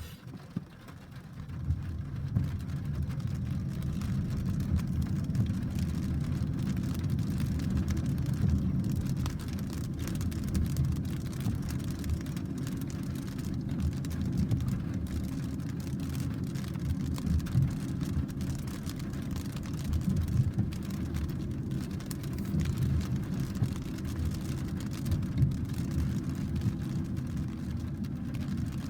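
Thunderstorm in a downpour: a long, uneven low rumble swells up about two seconds in and goes on under a faint hiss of rain.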